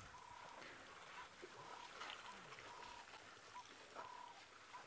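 Near silence: faint open-air ambience, with a thin high tone that comes and goes in short dashes.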